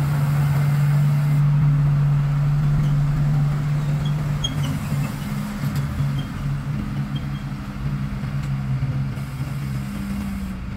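Diesel engine of a Sakai TS150 pneumatic-tyred road roller running as it works fresh asphalt: a steady low drone, loudest in the first half and easing off later.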